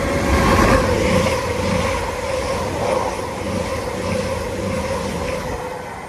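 A train passing along the line, loudest about a second in and then slowly fading, with a steady droning tone under the rumble and rail noise.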